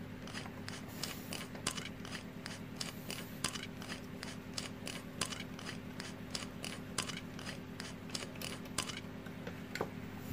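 Hand screwdriver driving a small screw into a metal chassis: a run of light, irregular clicks, about three a second, that stops about ten seconds in.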